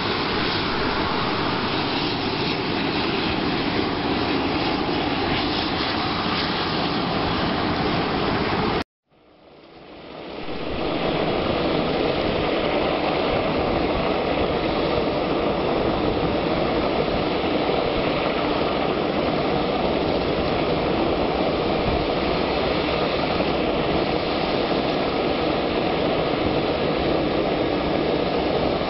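Jet engines of a twin-engine cargo airliner running as it taxis: a loud, even noise. About nine seconds in the sound cuts out completely, then fades back up over a couple of seconds.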